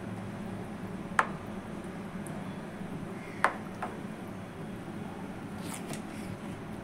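Plastic spoon stirring grated potato into a simmering mixture in a nonstick pan, with two sharp knocks of the spoon against the pan, one about a second in and one midway, over a steady low background noise.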